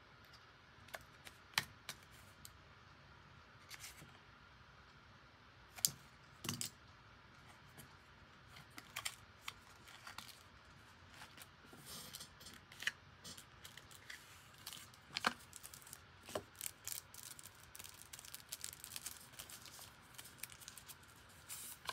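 Hands handling the box and plastic packaging of a camera lens protector: scattered small clicks, taps and crinkles, growing into a denser crinkling near the end.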